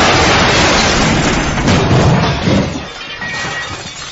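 Car crash sound effect: a sudden loud smash with glass shattering, fading in the last second or so into scattered clatter.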